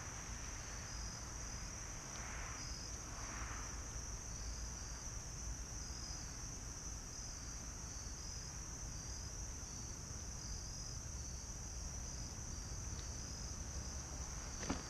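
Crickets chirping in a steady chorus: a continuous high trill with a fainter, evenly pulsing chirp just beneath it, over a low steady rumble.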